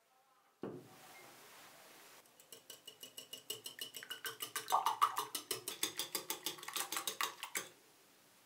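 Wire whisk beating eggs in a glass bowl, its wires clicking quickly and evenly against the glass at about six strokes a second, starting about two seconds in and stopping near the end. A single knock comes shortly before.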